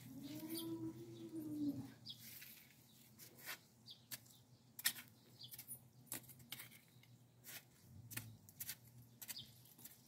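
A cow mooing once, one long call that rises and falls in pitch over the first two seconds. After it come scattered clicks and scrapes of gloved hands scratching and patting soil.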